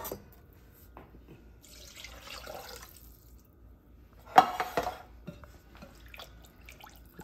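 Water poured from a soup can into a glass Pyrex measuring cup of creamed soup, loudest about four and a half seconds in with a splash and a clink, then a metal spoon clicking against the glass as the mix is stirred.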